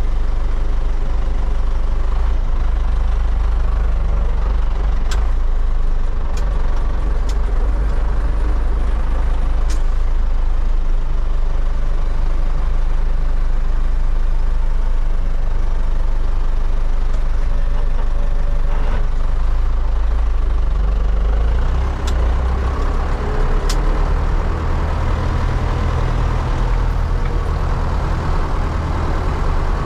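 MTZ-80 tractor's D-243 four-cylinder diesel engine running steadily under way, with a few sharp clicks or rattles now and then. About two-thirds of the way through, the engine sound dips briefly, then comes back heavier and deeper.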